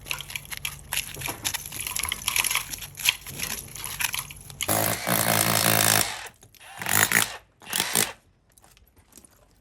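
Tools working at brickwork: irregular scraping and knocking, then a power tool runs loudly for just over a second about five seconds in, followed by two shorter bursts.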